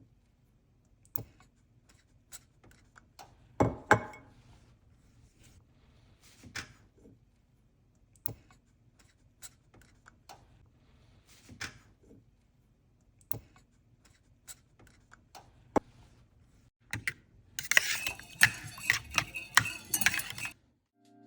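Kitchen utensils and dishes handled during food prep: scattered clinks and knocks, then about three seconds of rapid clattering near the end.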